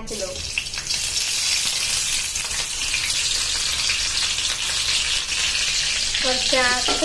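Chopped tomatoes and green chillies frying in hot oil in an iron kadai: a steady, loud sizzle that starts as they go into the oil just after the start, stirred with a steel spatula.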